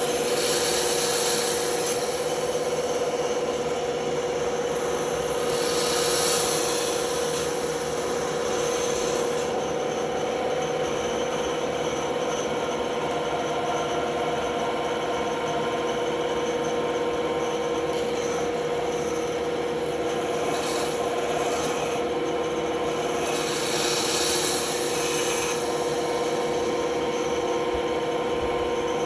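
Band saw running with a steady hum while its blade cuts through a workpiece, with a rasping hiss that grows louder and brighter near the start, about six seconds in, and again from about 23 to 25 seconds in as the blade bites harder.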